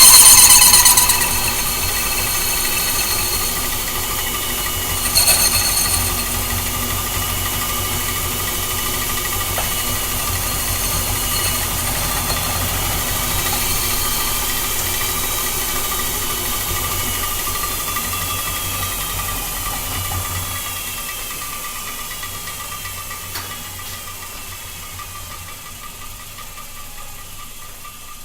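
Antique Reed metal lathe, driven by a retrofitted treadmill motor, running while turning down the diameter of a rotor spacer. A loud high squeal in the first second gives way to a steady hum with a thin whine, which grows gradually quieter over the last several seconds.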